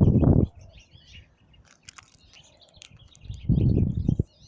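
Small birds chirping and twittering, broken by two short loud low rumbles: one at the very start and a longer one about three and a half seconds in.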